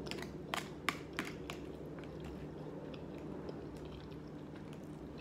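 A person chewing a mouthful of shrimp and rice, with a few wet clicks in the first second and a half, over a low steady hum.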